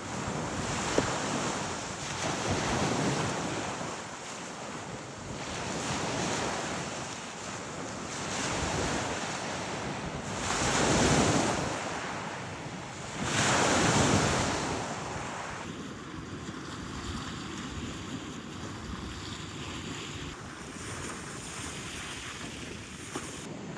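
Storm wind buffeting the microphone in gusts that swell and fall every few seconds, loudest about eleven and fourteen seconds in, then steadier and quieter after about sixteen seconds.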